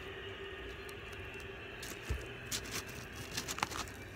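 Paper fast-food wrapper crinkling, with a series of short crackles in the second half, after a soft thump about two seconds in.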